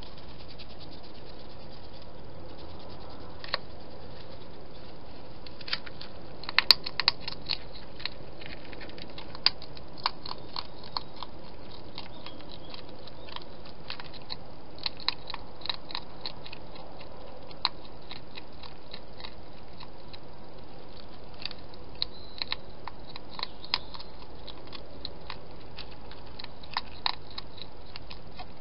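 Wild hedgehog eating at a dish, crunching its food in irregular bursts of sharp clicks and crunches over a steady hiss.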